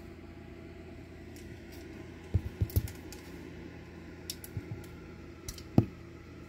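Steady low hum with scattered short clicks and knocks: a quick cluster about two and a half seconds in, a few lighter ones later, and one louder knock near the end.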